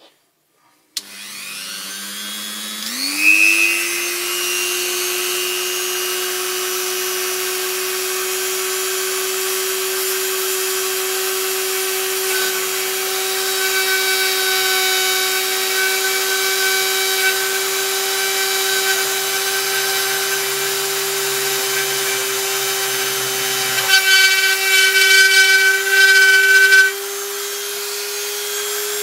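Dremel rotary tool switched on about a second in, its motor spinning up over a couple of seconds to a steady high whine. It keeps running while it routs a groove for a carbon fibre spar in a foam RC plane wing. For about three seconds near the end it turns louder and harsher, then settles back.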